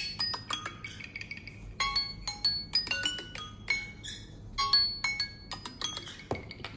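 Samsung Galaxy Z Flip3 alarm tone ringing from the phone's speaker: a bright, mallet-like melody of short ringing notes, played in repeating phrases.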